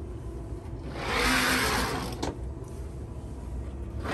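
Window blind being drawn shut: a sliding noise about a second and a half long, ending in a click.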